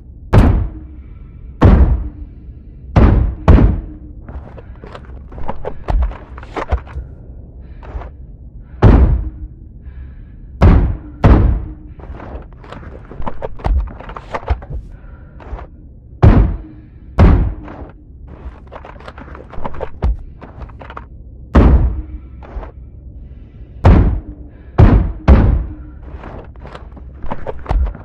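A .50 calibre GSW-AMR sniper rifle firing a long string of shots at uneven intervals, about a dozen loud reports with fainter ones in between, each with a short ringing tail.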